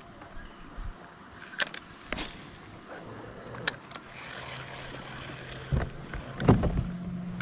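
Sharp clicks and knocks of fishing gear handled in a boat, the loudest in a cluster near the end, with a low steady hum starting about three seconds in.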